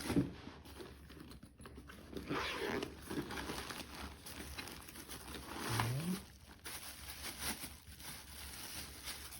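Packaging being handled during unboxing: irregular crinkling and rustling as the tool kit's box and soft carry bag are opened and moved.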